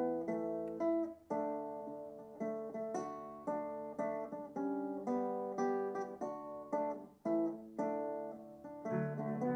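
Background music: a guitar playing a melody of plucked notes, several a second, each fading before the next.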